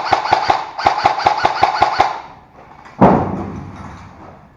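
Airsoft gun firing full-auto in two rapid bursts of about seven shots a second, with a short break between them. About three seconds in comes a single loud bang that rings and fades over about a second.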